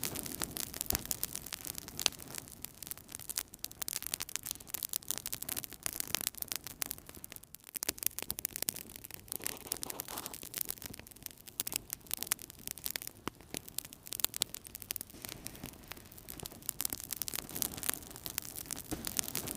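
Wood fire burning in a fireplace, crackling and popping irregularly over a steady low rush of flames.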